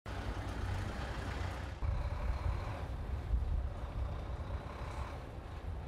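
Heavy military trucks' engines running with a deep, steady rumble. About two seconds in the sound cuts to a louder engine rumble of trucks at close range.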